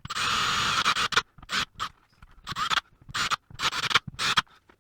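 Small power drill biting into plastic lugs: one run of about a second, then about five short bursts of the bit grinding through plastic.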